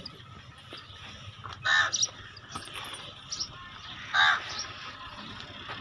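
A crow cawing twice, about two and a half seconds apart, with small birds chirping faintly in between.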